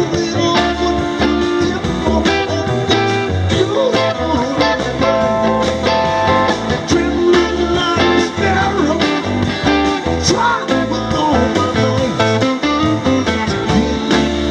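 Live rock band playing an instrumental stretch: drums, guitars and keyboards, with an electric guitar lead line bending notes about two-thirds of the way through.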